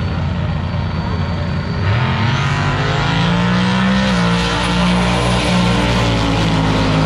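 Drag-racing cars launching off the line. The engines rumble low, then about two seconds in they rise sharply in pitch as the cars accelerate. About four seconds in there is a brief dip, as at a gear shift, and then they keep pulling hard at high revs down the strip.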